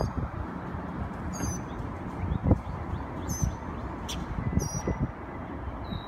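Small songbird perched on a power line, giving short high chirps about every one to two seconds, four or five in all. Under them runs a low rumbling noise on the microphone, with a few dull knocks.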